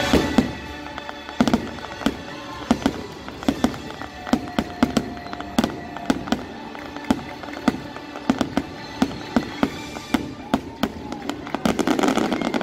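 Fireworks show: many sharp bangs of aerial shells bursting at an uneven pace, thickening near the end, over the show's orchestral music.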